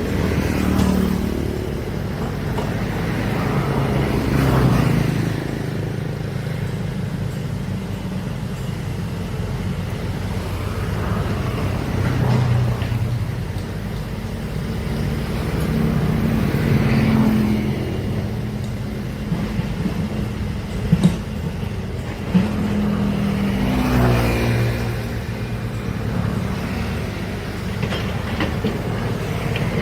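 Heavy construction machinery's diesel engine running under load, revving up and down in repeated swells, with two sharp knocks about two-thirds of the way through.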